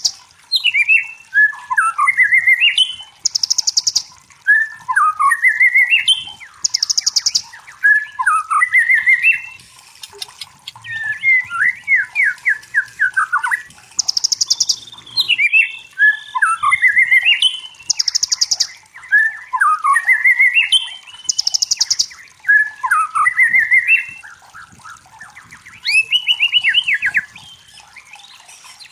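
White-rumped shama (murai batu) song: repeated phrases of quick, rising and falling whistled notes every couple of seconds, with short, very high buzzy trills between them.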